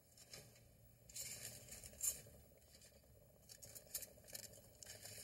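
Faint crinkling and rustling of aluminium foil in short, irregular bursts as small pieces are handled and laid over the open cans.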